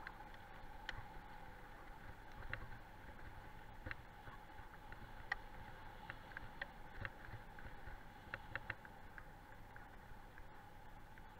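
Faint steady rolling hum of a dog-drawn dryland rig's wheels on a gravel road, with scattered small clicks and rattles from the rig and gravel.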